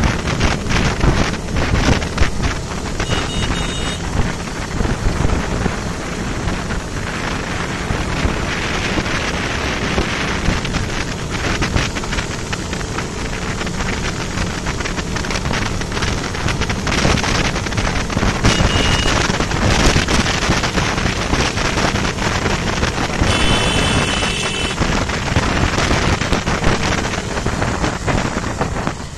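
Heavy wind buffeting a microphone moving at road speed on a motorcycle, with engine and tyre noise underneath. Short high beeps cut in twice, about three seconds in and again near the end.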